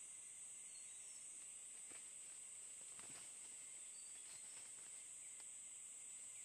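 Steady high-pitched insect drone, with a few faint clicks.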